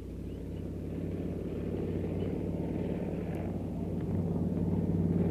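A motor vehicle's engine running steadily and growing louder, as if drawing closer.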